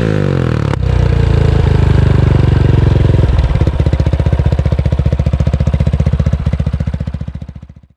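Yamaha YBR 250's single-cylinder engine through a full IXIL exhaust with the dB-killers removed, its revs falling back and settling into an idle with distinct, evenly spaced exhaust pulses. The sound fades away near the end.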